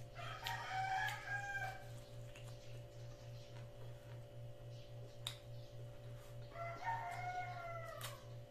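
A rooster crowing twice, once near the start and again near the end, each crow about a second and a half long and falling in pitch at the end. A steady low hum runs underneath, with a couple of sharp clicks between the crows.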